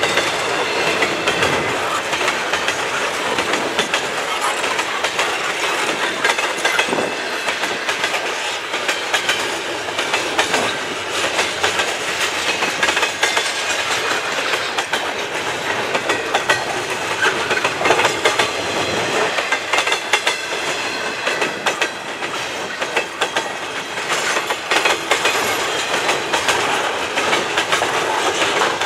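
Double-stack intermodal freight train's container well cars rolling past at speed: a steady rumble with rapid clicking and clatter of the wheels over the rail joints.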